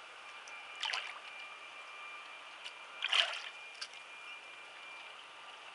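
Water splashing twice, briefly about a second in and more loudly about three seconds in, over a faint steady hiss and a thin steady whine.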